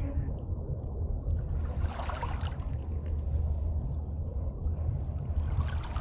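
Shoreline ambience: small waves washing against the shore, once about two seconds in and again near the end, over a steady low rumble.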